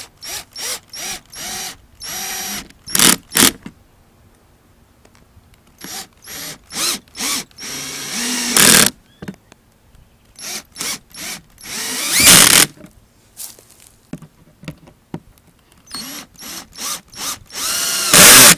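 Cordless drill/driver driving screws into a plastic mower cover, its motor whining up in many short trigger pulses in quick succession. Each group ends in a longer, louder run as a screw is driven home.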